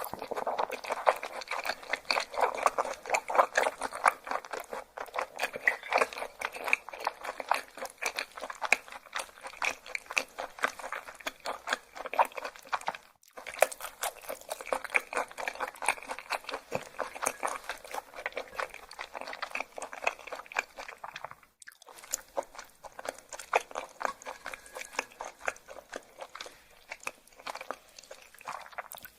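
Close-miked chewing of raw yellowtail sashimi: continuous wet, crisp crunching and clicking in the mouth, broken by two brief pauses partway through.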